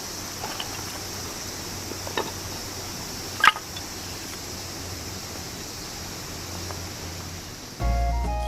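Steady rushing hiss of a mountain stream, with a few sharp ticks, the loudest about three and a half seconds in. Background music with held notes and a low beat comes in near the end.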